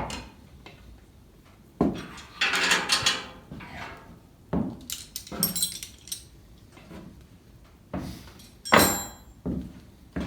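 Metal parts knocking, clattering and scraping as they are handled, with a longer rattling scrape about two seconds in and a few ringing metal clanks, the loudest near the end.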